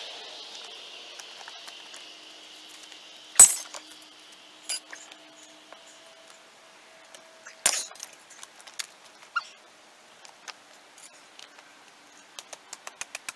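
Long-handled bolt cutters snapping through steel rebar: two sharp, loud snaps about four seconds apart, with lighter metallic clicks between them. A quick, even run of light ticks begins near the end.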